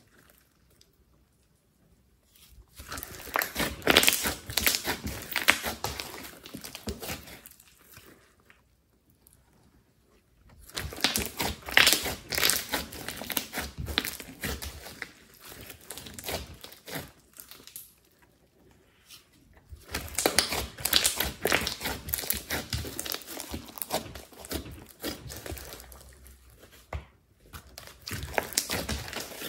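Hands kneading and squeezing a large lump of thick slime: sticky crackling and popping in bursts of several seconds each, with short quiet pauses between as the hands shift their grip.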